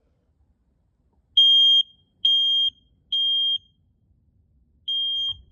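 Kidde smoke alarm sounding on test: a high-pitched piezo beep in the temporal-three evacuation pattern. Three half-second beeps, a pause, then the next round of three begins near the end.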